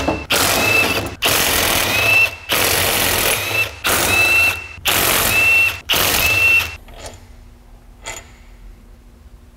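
Cordless impact wrench with an extension hammering out the 10 mm bolts that hold the front housing of an Eaton M62 Roots-type supercharger. There are about six short rattling bursts, one per bolt, each ending with a brief high whine. After that come only a few light clicks as the bolts are handled.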